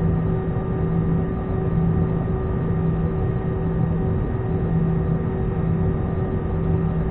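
Airbus A320-214's CFM56 turbofan engines idling while the airliner stands still, heard from inside the cabin as a steady hum with a few steady whining tones and a low drone that comes and goes every second or two.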